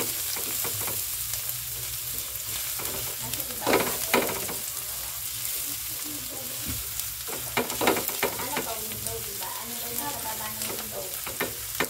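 Minced garlic sizzling steadily in hot oil in a nonstick pan, being sautéed until brown while a silicone spatula stirs it. There are louder scrapes of the spatula against the pan about four seconds in and again about eight seconds in.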